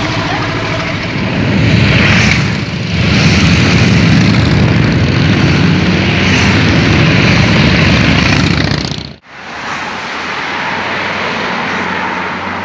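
Engine and exhaust noise of passing vehicles: a Lamborghini Urus SUV, a group of Harley-Davidson V-twin cruisers and a Jaguar F-Type sports car, cut together. The sound breaks off abruptly about nine seconds in and comes back quieter.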